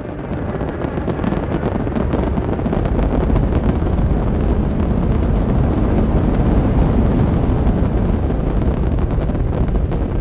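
Sound effect of a spacecraft's rocket thrusters firing: a loud, dense, steady rumble, heavy in the lows, that swells up over the first few seconds and then holds.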